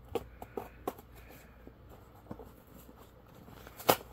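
A few light clicks and knocks from objects being handled, then one sharper, louder knock near the end.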